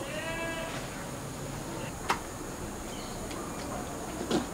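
A metal spoon knocking against a clay cooking pot, two sharp clacks about two seconds apart, over a steady background hiss. A brief high call in the first second.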